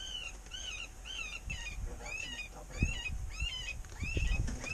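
A predator call repeating a short, high, arched distress squeal two to three times a second, used to lure coyotes in. A few low thumps come in during the second half.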